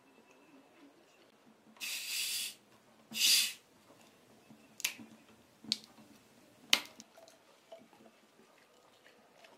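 Plastic cola bottle twisted open, its carbonation hissing out in two short bursts, the second louder. A few sharp clicks and knocks of the bottle and cap follow, one louder knock about two-thirds of the way through.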